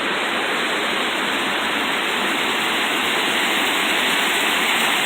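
Rushing water of a rocky gorge stream and its waterfalls, a steady, even rush.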